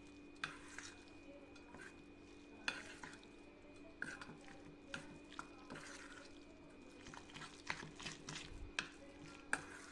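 Spoon stirring thick semolina batter with chopped vegetables in a stainless steel bowl: wet scraping with irregular clinks of the spoon against the bowl's side, over a faint steady hum.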